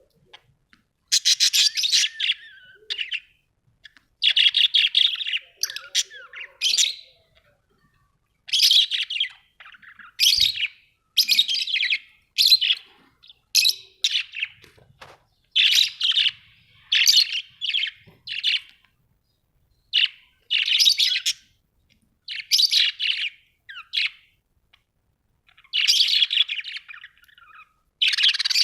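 Budgerigars chirping and chattering in rapid bursts of a second or so, separated by short pauses.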